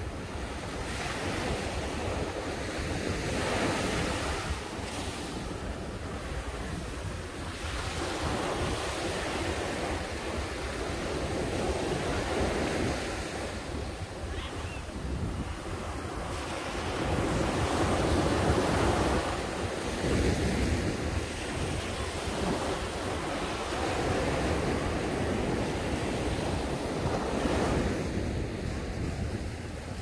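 Small sea waves breaking and washing up a sandy beach, the surf swelling and ebbing every few seconds. Wind rumbles on the microphone underneath.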